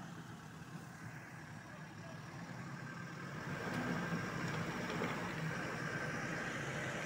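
Off-road pickup's engine idling steadily, growing louder about three and a half seconds in.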